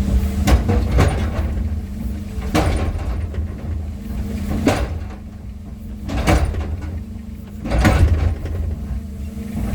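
Engine running steadily at a low hum, with about six sharp knocks at irregular intervals over it.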